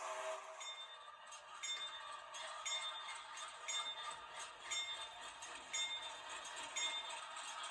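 Locomotive bell ringing steadily, a bright metallic strike about once a second.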